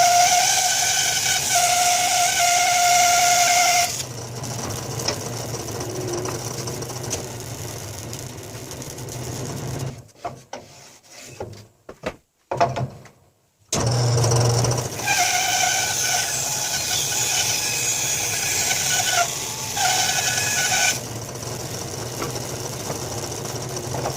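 Woodworking power tool running with a steady whine as it cuts cherry wood. The sound turns noisier after a few seconds, stops for a few seconds around the middle with a few knocks, then starts again.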